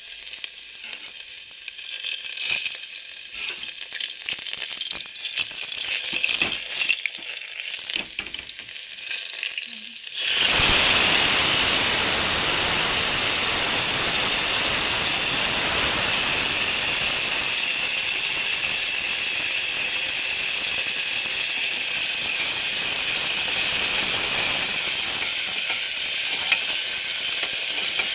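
Food frying in a hot pan: crackling with scattered pops at first, then about ten seconds in a much louder, steady sizzle starts suddenly and keeps going.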